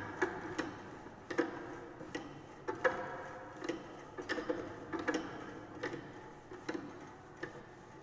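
Irregular metallic clicks, about one or two a second, each with a short ring. They come from the adjusting screw and nut of a bell crank lever apparatus being turned by hand to bring the loaded lever back level.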